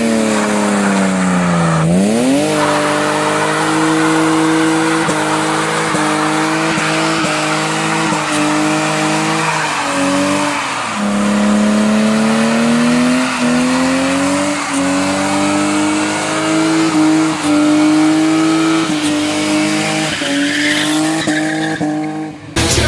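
BMW E30 engine held high in the revs, dipping about two seconds in and then climbing and wavering with the throttle, over a continuous screech of tyres sliding on the pavement in a long drift.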